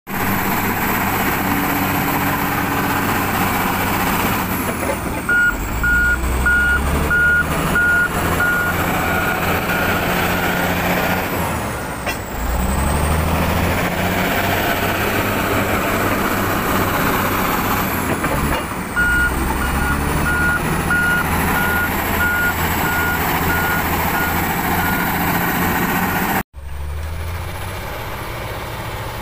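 Shantui SD22 crawler bulldozer's diesel engine working hard, revving up and down, with a high whine that dips and rises. Twice the reverse alarm beeps about twice a second for several seconds as the dozer backs up. Near the end the sound cuts out for a moment, then the engine is heard quieter and steadier.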